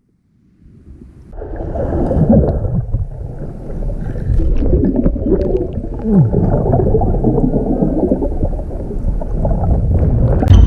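Underwater bubbling and gurgling of a snorkeler's exhaled air, heard through a camera below the surface. It starts about a second in and goes on as a dense, wavering gurgle.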